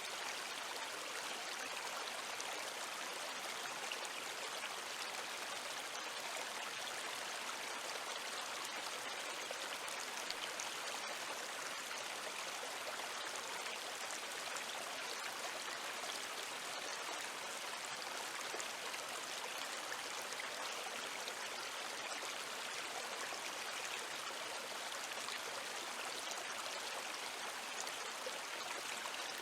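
River water flowing in a steady, unbroken babble, mostly mid and high pitched with little low rumble.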